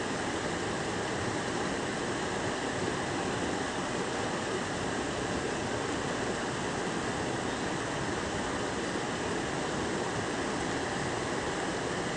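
Steady rushing of a rocky brook's flowing water.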